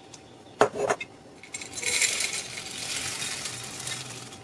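A single glassy clink a little over half a second in, then crisp roasted jowar dhani chivda (sorghum puffs, potato sticks and nuts) pouring from a glass jar into a glass bowl as a steady dry, rattling rustle that slowly fades.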